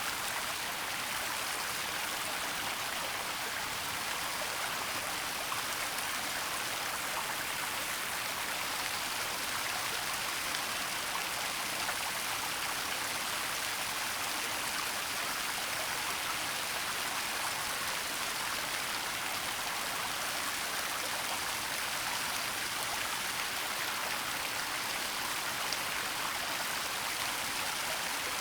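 Waterfall running steadily: an even rush of falling water with a fine patter and splash, unchanging throughout.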